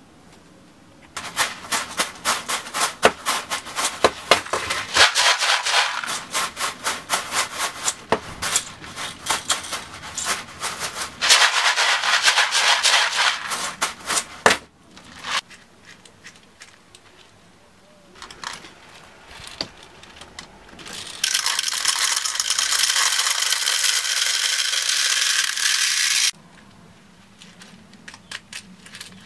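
Airsoft BBs rattling: loud rapid clicking and steady rushing from BBs in a clear plastic bottle, the sound of a noisy BB bottle, alternating with quieter, muffled rattling from BBs in a cloth BB bag. A few light clicks near the end as the bag's screw cap is handled.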